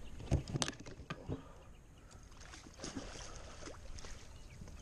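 Water sloshing and splashing, with scattered sharp knocks, from a hooked northern snakehead thrashing at the surface beside a small boat. The sharpest splashes and knocks come in the first second and a half, with a few more later.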